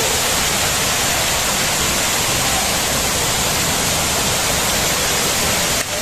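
Baklai waterfall's falling water: a loud, steady rushing noise with no break.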